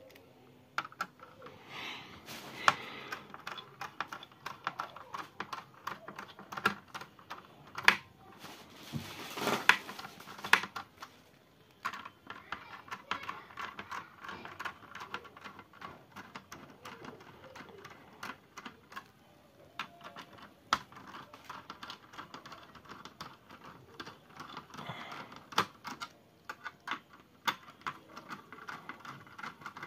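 Screwdriver working the heatsink screws on an all-in-one PC's motherboard: an irregular run of small clicks and scrapes of metal on metal, with a few sharper knocks.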